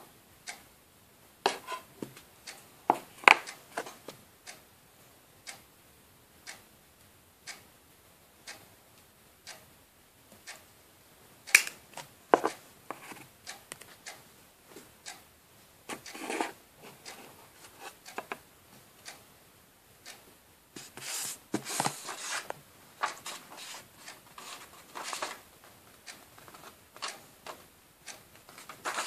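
Handling noises of a plastic CD on a tabletop: scattered clicks and taps as it is picked up, turned and set down, with a stretch of rubbing about two-thirds of the way through. Between them, faint ticks come about once a second.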